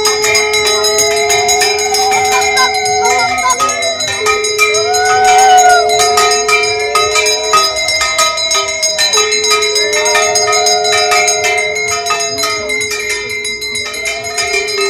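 A conch shell (shankha) blown in three long held blasts, the middle blast starting about four seconds in and the last about nine seconds in, over a brass hand bell rung rapidly and continuously during puja worship.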